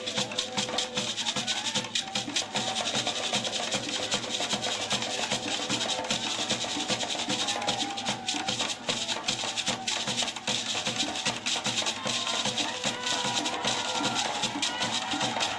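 Traditional West African music: a fast, steady drum beat with rattling shakers and sharp clicking percussion, and voices singing over it.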